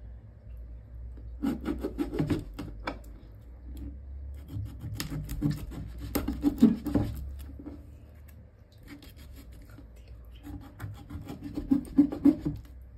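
A kitchen knife cutting through the tail stalk of a dart fish on a cutting board: three bouts of rasping, crackling strokes as the blade works through the tail bone, the loudest about halfway through and near the end.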